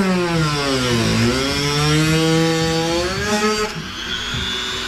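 Corded rotary tool with a small cutting wheel cutting through a plastic bumper cover. The motor's pitch drops as the wheel bogs into the plastic, about a second in, then climbs back up. Near the end the wheel spins free with a high whine as the tool comes away.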